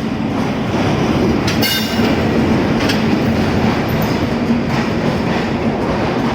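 Benapole Express passenger train running close by, a steady heavy rumble of carriages on the rails, with a brief high-pitched wheel squeal about one and a half seconds in.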